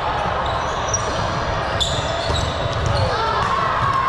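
Indoor court game: a ball bouncing and being hit, with a sharp hit about two seconds in and short gliding sneaker squeaks near the end.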